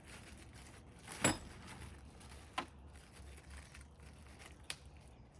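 A few short sharp knocks and clicks, the loudest about a second in and fainter ones later, from handling the upright fridge's mounting brackets against its sides.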